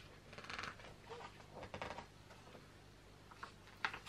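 Faint rustling of a picture book's paper pages as a page is turned, with a short sharp flick of the page near the end.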